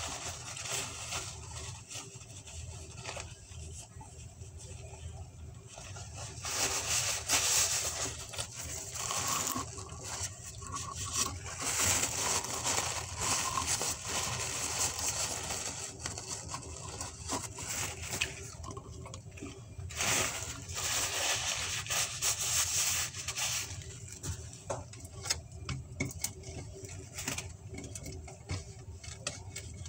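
Close-up eating sounds from pizza being eaten: chewing and wet mouth noises, with fingers handling the food and a paper napkin. Small clicks run throughout, with a few louder noisy stretches.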